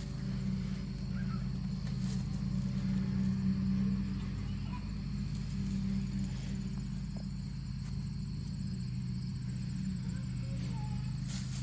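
A steady low machine hum runs throughout, with a few faint ticks and scrapes over it.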